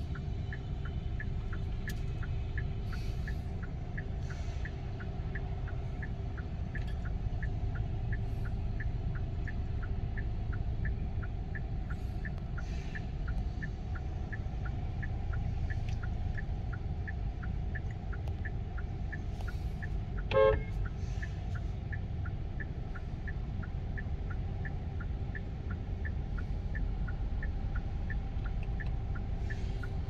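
Car engine idling, heard from inside the cabin, with a light regular ticking about twice a second. One short honk stands out about twenty seconds in.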